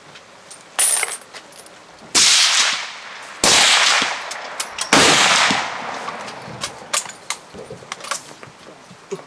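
Four rifle shots at uneven gaps: the first about a second in, then near two, three and a half and five seconds in. Each is a sharp crack with a long echo under the roofed firing line. A few light clicks follow.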